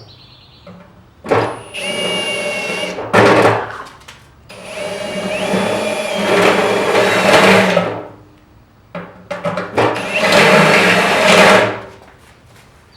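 Electric drill boring a hole for a quarter-turn fastener, run in three bursts of a few seconds each with a steady motor whine; in the second burst the whine steps up in pitch.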